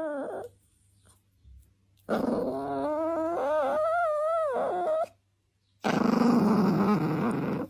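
A dog vocalising: a long wavering, whining howl that rises and falls in pitch, then a rougher, noisy growl near the end.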